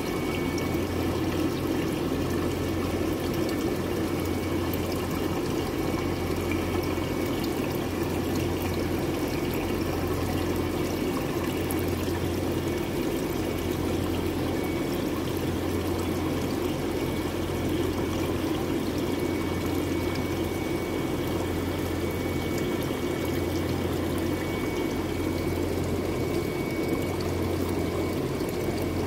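Aquarium water circulation: water steadily pouring and splashing into the tank over a constant low pump hum.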